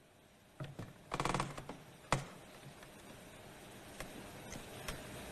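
Quiet movement sounds of a man getting up from a chair at a table: a few light clicks, a short scuffing rustle about a second in, and a sharp tap about a second after that.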